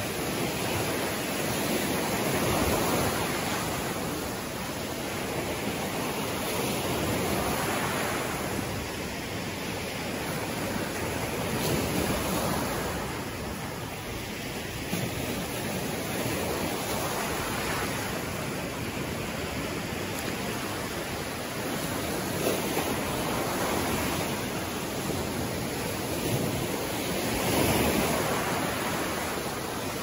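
Small surf waves breaking and washing up a sandy beach: a steady hiss of surf that swells and eases every few seconds as each wave breaks.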